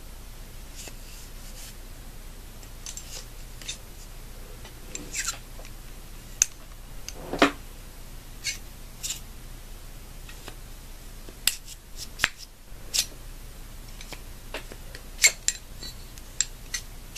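Scattered clicks, taps and scrapes of a cleaning rod and patch being worked through an AR-15 bolt carrier, and of the carrier being handled, with a longer scrape about seven seconds in. A faint steady low hum runs underneath.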